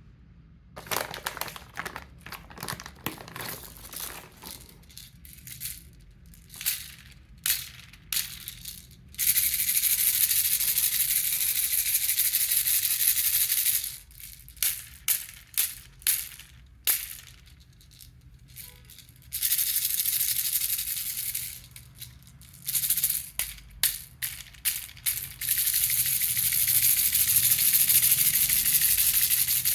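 A baby rattle shaken by hand, alternating groups of single sharp shakes with stretches of fast, continuous rattling lasting a few seconds each.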